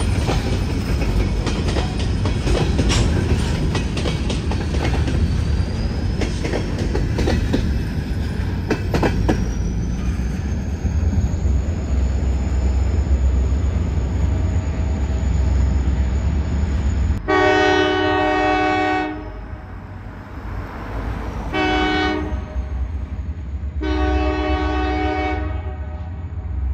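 Freight train of covered hopper cars rolling past close by: a steady rumble with wheel clicks and a thin, high wheel squeal. About two-thirds of the way through, the rumble drops off and the locomotive's horn blows three times: a long blast, a short one, then another long one.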